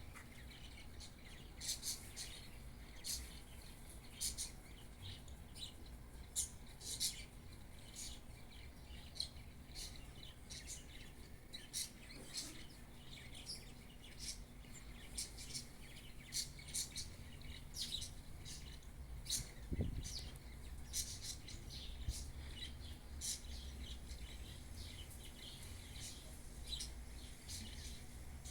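Birds chirping outdoors: many short, high chirps at irregular intervals over a steady low rumble, with one brief low thump about twenty seconds in.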